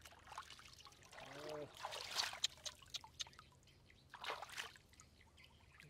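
Hands splashing and sloshing through shallow muddy water while groping for a crab, in irregular bursts with sharp drips and plops. The last burst, about four seconds in, is the crab being lifted out of the water. A short falling call sounds briefly in the middle.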